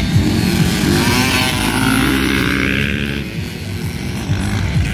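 Motocross dirt bike engines revving, the pitch rising through the second and third seconds, then easing off.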